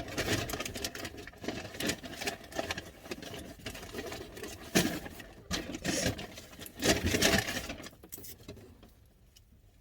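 Paper and cardboard food packaging being handled, rustling and crinkling with irregular clicks and taps. It dies down near the end.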